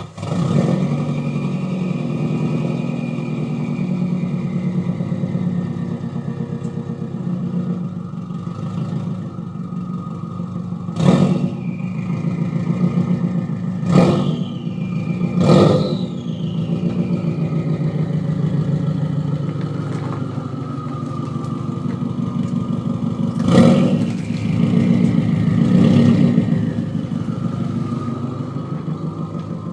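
Subaru Forester SG9's turbocharged flat-four engine, breathing through a loud 3-inch Blitz NUR-spec exhaust, firing up right at the start and settling into a lumpy idle. It is given five short throttle blips: three about 11, 14 and 15.5 seconds in, and two more about 23 and 26 seconds in.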